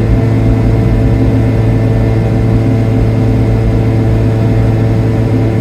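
Piaggio Ape 50's small single-cylinder two-stroke engine droning steadily at an even cruising speed on level road.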